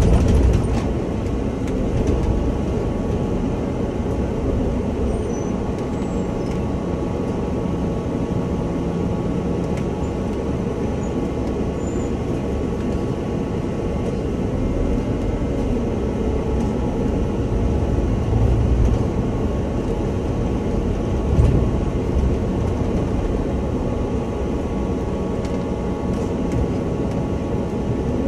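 Scania OmniLink city bus heard from the driver's cab while driving: steady engine and road noise with a faint steady whine, and one short knock about three quarters of the way through.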